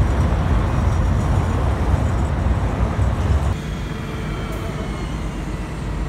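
City street ambience: a steady low rumble of traffic with general outdoor noise. The sound changes abruptly to a lighter, quieter ambience about three and a half seconds in.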